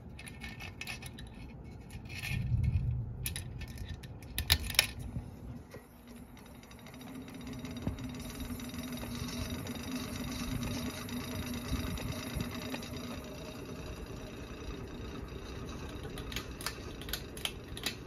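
Hampton Bay Genoa ceiling fan motor spinning up and running with a steady hum, after a few clicks and knocks in the first seconds.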